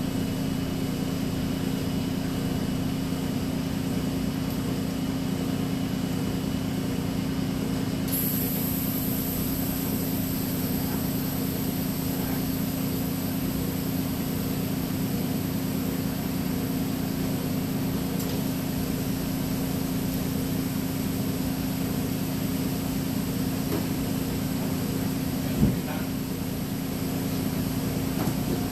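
Steady machine hum with a constant low tone, joined by a faint high whine a third of the way through; a single short knock near the end.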